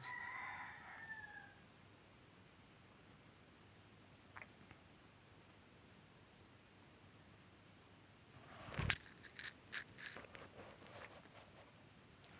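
A cricket trilling faintly, one high, rapidly pulsing note. There is a sharp click about nine seconds in, followed by a few lighter taps.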